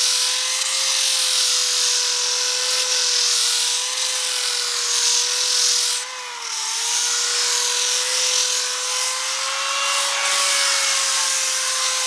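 Corded electric drill spinning a flap wheel, sanding casting marks off a cast aluminium motorcycle wheel: a steady motor whine over a gritty sanding hiss. About halfway through the whine and the level dip briefly, then recover.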